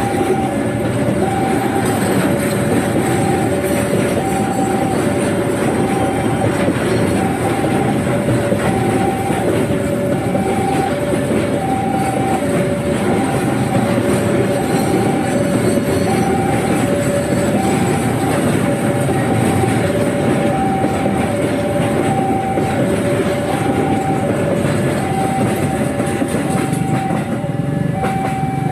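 Container freight train's loaded flat wagons rolling past over a level crossing, a steady rumble with clickety-clack of wheels on rail joints. Over it the crossing's warning alarm sounds an alternating two-tone chime, high and low notes taking turns a little under once a second.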